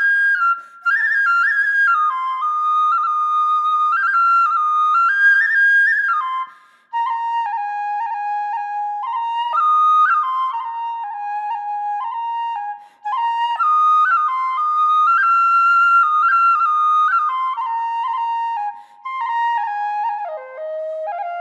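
Background music: a solo flute playing a melody of stepped, held notes, in phrases broken by short pauses.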